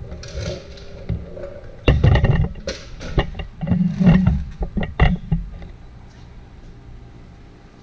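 Handling noise of a plastic side-marker lamp being worked out of a Corvette's fender: a run of irregular knocks, clicks and rattles over a few seconds, quieter toward the end.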